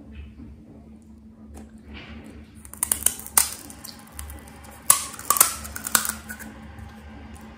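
Crisp crackling of a hollow fried pani puri (golgappa) shell being broken open with a thumb, in two short bursts of sharp cracks, about three seconds in and again from about five to six seconds in.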